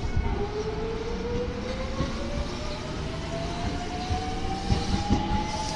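Electric commuter train pulling away from the platform. Its traction motors give a whine that rises steadily in pitch as it picks up speed, over a low rumble and a few knocks from the wheels.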